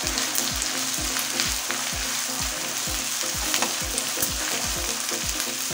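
Chopped onions sizzling steadily in hot refined oil in a kadai while being stirred with a metal spatula, as they sauté.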